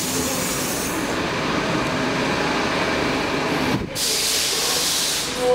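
Stockholm metro C14 train: steady rumble inside the car at the platform, broken off about four seconds in and followed by a brighter, steady hiss.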